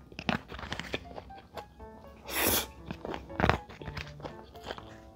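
Close-miked eating sounds: strands of food slurped in from chopsticks and chewed, with two loud slurps in the middle, over light background music.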